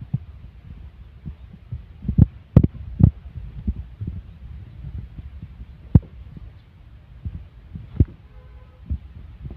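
Wind buffeting a phone microphone: a steady low rumble broken by irregular thumps, the strongest a cluster about two to three seconds in and single ones about six and eight seconds in.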